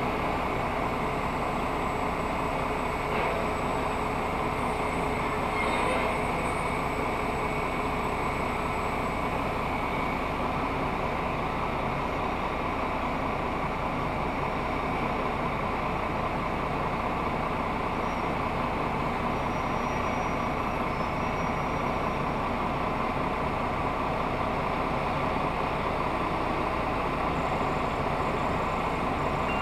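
Steady engine noise of an idling semi truck, heard from inside its cab. Near the end a backup alarm begins beeping.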